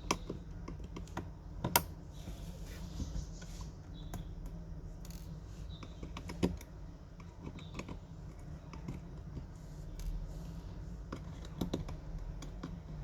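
Scattered small clicks and taps of a screwdriver working screws out of a phone's inner frame, the sharpest about a second and a half in and again about six seconds in, over a low steady hum.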